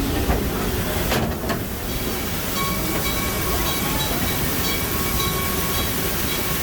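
Calico Mine Ride train rumbling steadily along its track, with a short burst of hiss about a second in.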